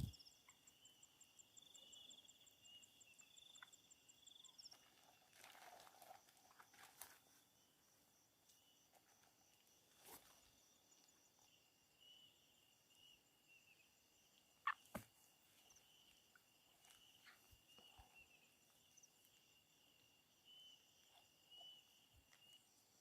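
Faint, steady trilling of night insects, with a few soft rustles and brief clicks.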